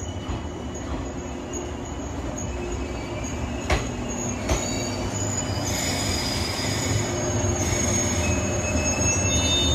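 A JNR 189 series electric train pulls into the platform under braking, its low rumble growing slowly louder. There are two sharp clacks about four seconds in, and a high-pitched squeal rises in the second half as it slows.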